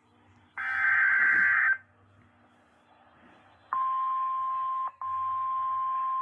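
The last screechy digital data burst of an Emergency Alert System SAME header, about a second long. After a short gap comes the steady single-pitch warning alarm tone of a NOAA Weather Radio alert, with a brief dropout about a second after it begins.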